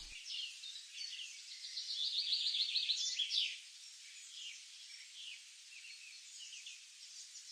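Wild birds singing and chirping over a faint steady hiss, with a fast trill of rapidly repeated high notes about two seconds in, the loudest part, and scattered short chirps after it.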